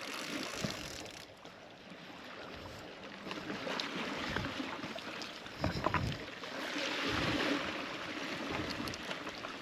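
Sea water sloshing and lapping, with a louder wash of water about seven seconds in and a couple of dull knocks just before it.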